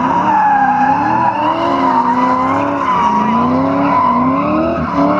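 Two drift cars in tandem, among them a BMW E30, engines revving up and down at high revs while their rear tyres squeal and skid.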